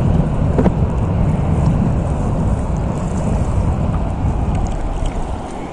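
Wind buffeting the microphone over the wash of the sea: a loud, steady low rush, with a sharp click about half a second in.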